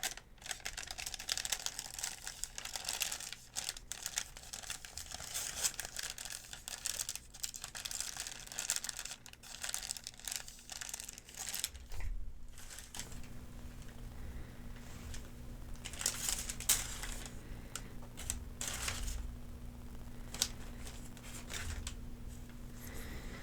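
Paper pharmacy medication-guide sheets crinkling and rustling as they are handled and folded. The crinkling is dense for about twelve seconds, pauses briefly, then continues as sparser separate crackles.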